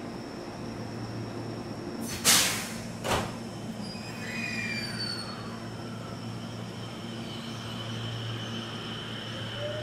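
JR 521 series electric train standing at a platform with a steady electrical hum. About two seconds in comes a loud hissing burst of air, with a shorter one a second later. Near the end a rising whine of its motors starts as it begins to pull away.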